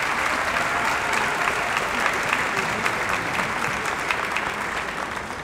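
Concert audience applauding steadily, slowly fading near the end.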